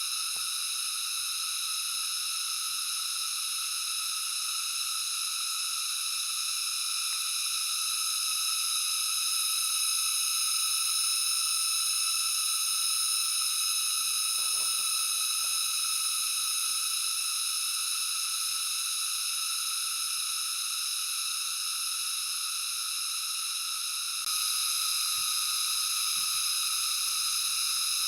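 Steady high-pitched hiss with no low end, a little louder for a while partway through, with a few faint low knocks about halfway.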